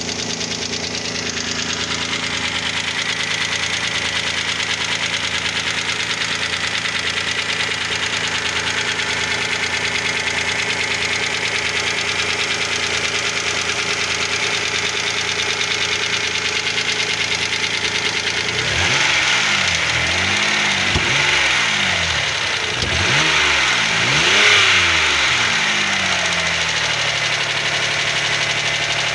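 Opel X30XE 3.0 V6 engine idling with a knock, blipped through several short revs about two-thirds of the way in, then settling back to idle. The knock remains despite new hydraulic lifters, fresh oil at normal pressure, and new bearings on a reground crankshaft; its cause is unknown to the owner.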